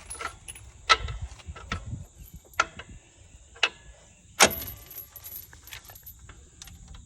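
Metal clinks and clanks of a chain and brake shoe return spring being worked on a semi-truck drum brake: a handful of separate sharp strikes, the loudest about four and a half seconds in.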